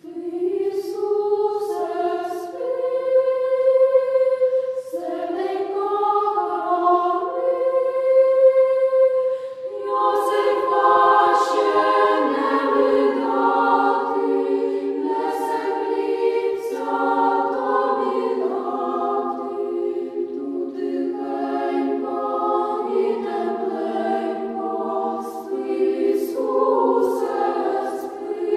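Choir singing a slow sacred song in several parts, with fewer voices at first and swelling into fuller harmony about ten seconds in.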